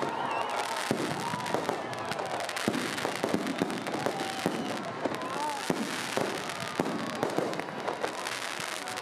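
Fireworks display going off in quick, irregular succession: sharp bangs and crackles of rockets and bursting aerial shells, with the voices of the watching crowd underneath.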